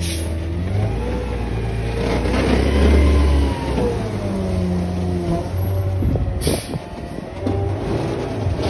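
Garbage truck's diesel engine running close by, its pitch rising and falling as it revs, loudest about three seconds in. A brief hiss comes about six and a half seconds in.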